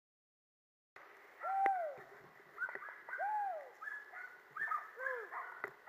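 Many short animal calls overlapping, several of them arched notes that slide down in pitch, starting about a second in. Two sharp clicks come through, one near the start of the calls and one near the end.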